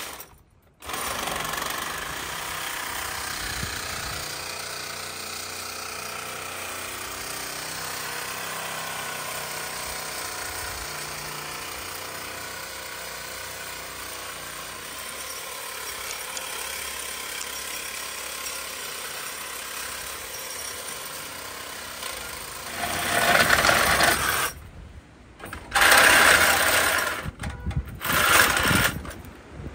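Cordless reciprocating saw cutting through the steel axle mounts of a truck frame: a steady buzzing rasp, then louder stop-start bursts of cutting near the end.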